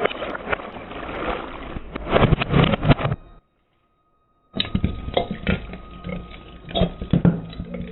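Dense crackling and crunching of something brittle being crushed, with many sharp cracks. It breaks off into full silence about three and a half seconds in, then starts again a second later.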